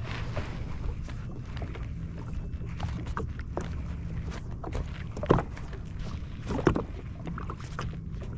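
Small waves slapping against the hull of a drifting jet ski, with two louder slaps about five and six and a half seconds in, over a steady low rumble.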